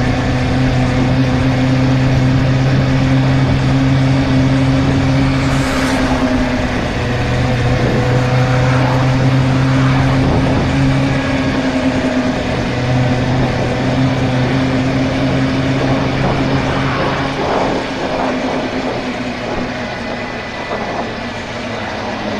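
Suzuki GSR 600's inline-four engine running at steady revs under way, over a rush of wind and road noise. The engine note dips briefly a few times and fades near the end.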